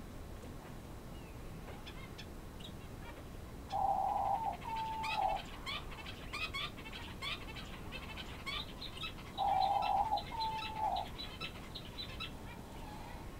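Bird calls: twice, about four and ten seconds in, a loud two-part call, a held note followed by a shorter bending note, with a fast run of short high chirps in between.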